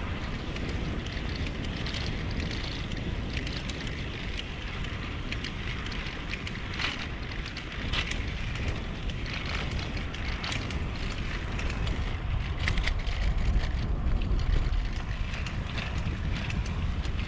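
Wind buffeting the microphone of a camera on a moving bicycle, a steady low rumble with the hiss of tyres rolling on a concrete path, and a few brief high ticks.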